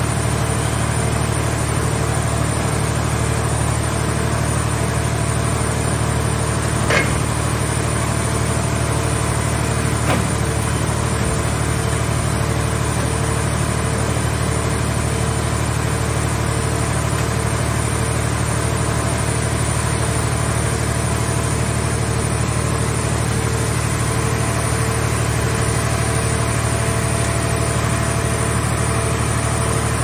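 Steady drone of a mobile car shell baler's engine-driven hydraulic power unit running while its grab crane handles scrap car bodies. Two short sharp metal clanks a few seconds apart break the drone in the first third.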